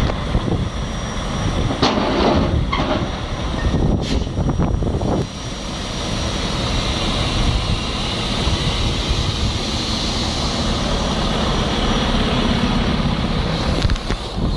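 Heavy diesel truck engine running steadily, with a few knocks and clanks about two to five seconds in.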